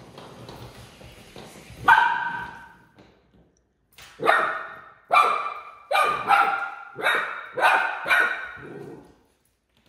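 Puppy barking in short, high yaps: one bark about two seconds in, then a quick run of about eight more from about four seconds in.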